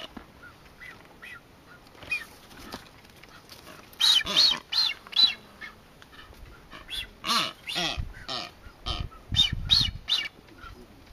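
Blue-footed boobies calling during their courtship dance: a run of short pitched calls in irregular bursts, loudest about four seconds in and again in a cluster near the end.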